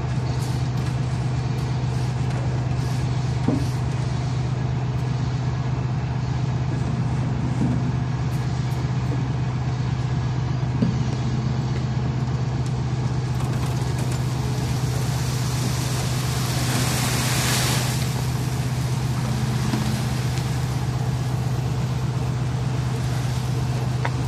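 Engine of an asphalt repair truck running steadily, a constant low hum. A brief rushing hiss comes in about two-thirds of the way through, along with a few small knocks.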